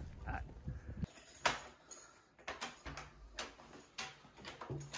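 Footsteps and light knocks and clicks, roughly two a second, from someone walking indoors with a heavy backpack.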